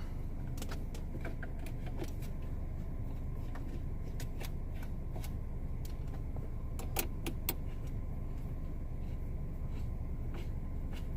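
Small plastic and metal clicks and rattles from dashboard trim and screws being handled, with two sharper clicks about seven seconds in, over a steady low rumble.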